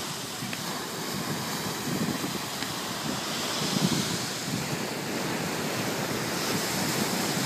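Black Sea surf: waves washing and breaking on the shore, swelling and falling, with wind buffeting the microphone.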